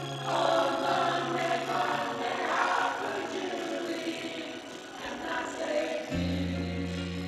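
A small group of people singing together informally. A steady low musical note comes in near the end.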